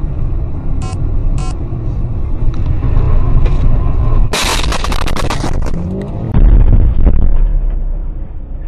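Car engine and road noise heard from inside a moving car. About four seconds in, a sudden loud crash with a crackle of sharp clicks as a car cutting across close in front is struck. A heavy low rumble follows.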